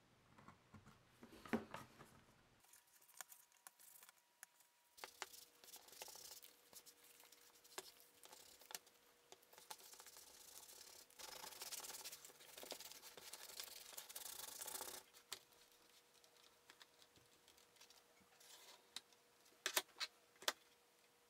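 Faint rubbing of hand tools and hands on leather and a cutting mat, strongest in a steady stretch about halfway through. A few sharp taps come near the end.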